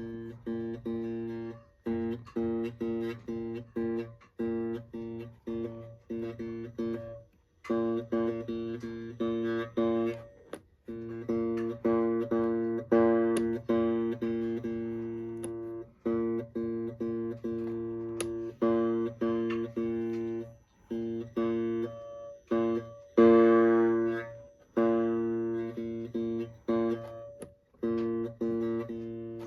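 Electric guitar played through a VOX AC2 RV-BASS mini amp: the same strummed chords repeated in a steady rhythm. This is a playing test of the amp after its loose speaker was glued back in place.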